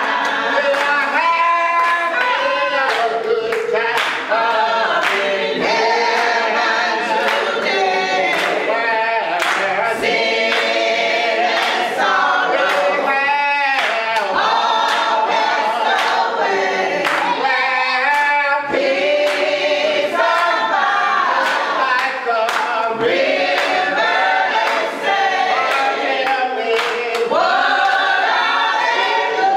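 A group of voices singing a gospel song together, unaccompanied, with hand claps keeping a steady beat.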